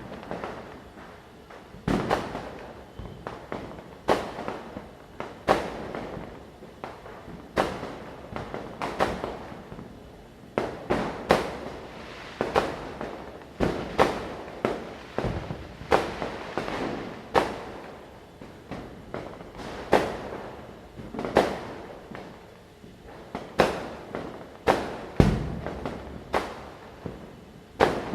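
Firecrackers bursting one after another, a sharp bang every second or so, each echoing briefly, over a constant background of more distant crackers popping.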